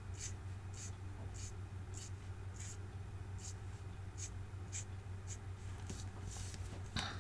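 Alcohol marker's brush tip scratching across cardstock in short, faint strokes about two a second. Near the end the strokes stop and the card is shifted on the desk with a soft rustle and a light knock.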